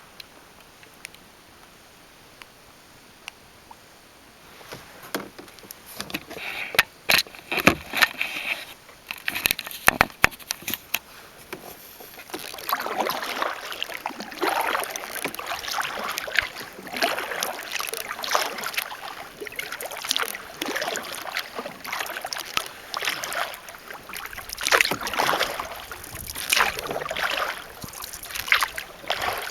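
Kayak paddling on calm water. A few sharp knocks and clicks come first, then a run of paddle strokes swishing and splashing through the water.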